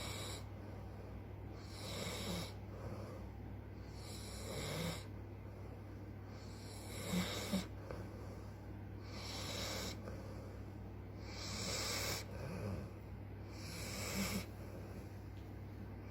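American bulldog snoring in its sleep, with one snore about every two and a half seconds.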